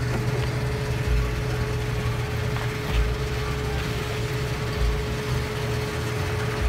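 Gas station fuel pump running with a steady hum while gasoline is dispensed through the nozzle into a plastic jerry can, with a few brief low thumps.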